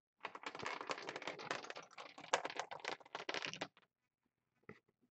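A Plinko disc clattering down through the pegs of a Plinko board: a quick, uneven run of clicks for about three and a half seconds. A couple of last taps follow near the end as it drops into a slot.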